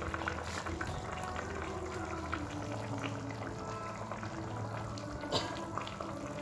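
A pan of soup simmering and bubbling as a thin stream of coconut milk is poured in from a sachet, with a wooden spatula stirring; a brief knock about five seconds in.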